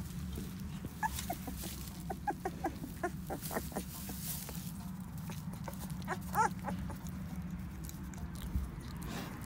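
Young puppies squeaking and whimpering in straw bedding: a quick run of short high squeaks in the first few seconds, then one louder whine about six seconds in. A light rustle of straw runs underneath.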